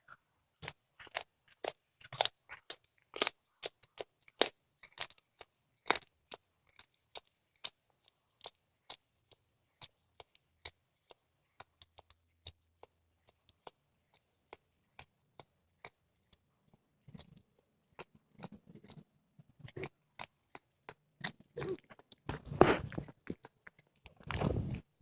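Domestic cat chewing and crunching on a squirrel carcass, the bones cracking in sharp, irregular clicks, fast at first and then sparser. Two louder, longer noisy stretches come near the end.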